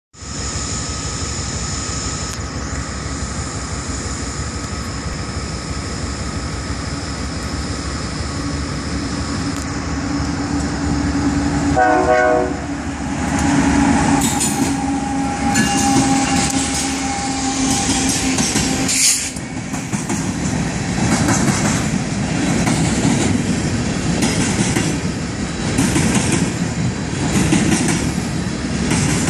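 BNSF GE ES44DC diesel-electric locomotives approach and pass close by with engines running, and give a short horn blast about twelve seconds in. After that come empty ballast hopper cars rolling past with a rhythmic clickety-clack of wheels over the rail joints.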